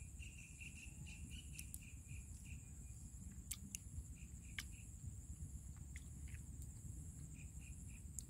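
Insects chirping in the background: a steady high trill, with a lower pulsing chirp that comes and goes. A few faint sharp clicks stand out, the loudest about three and a half and four and a half seconds in.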